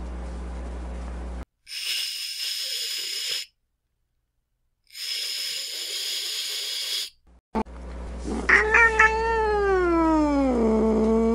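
Domestic cat hissing twice, each hiss about two seconds long with a silent pause between, then a long low yowl whose pitch slides down and levels off.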